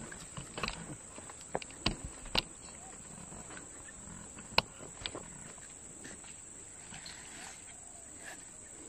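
A handful of sharp clicks and knocks from fish being handled and threaded onto a stringer, mostly in the first half with the loudest about four and a half seconds in. Underneath, a steady high insect drone.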